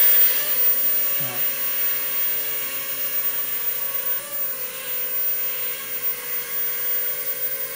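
JJ1000 toy quadcopter's small electric motors and propellers whining steadily in flight, the pitch wavering slightly as the throttle is worked. It is flying at low throttle, so it stays low.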